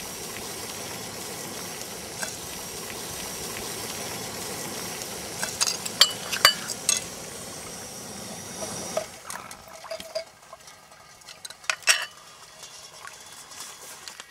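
Screw-on gas canister camp stove burning under a steel pot with a steady hiss, with a few sharp metallic clinks a little past the middle. The hiss stops about nine seconds in, leaving quieter scattered clicks.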